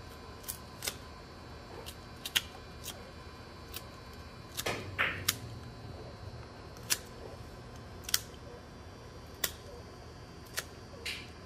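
A knife working at the head and gills of a mandarin fish on a wooden cutting board: scattered sharp clicks at irregular intervals, with a short scraping rasp about five seconds in and another near the end.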